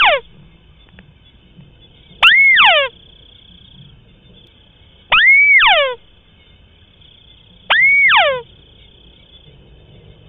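White-browed crake calling: a sharp upward note that turns into a long downward slide, under a second each, repeated about every two and a half to three seconds, three full calls after the tail of one at the very start.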